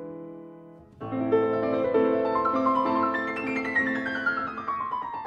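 Background piano music: a held chord dies away, then about a second in a new chord sounds and a run of notes steps down in pitch.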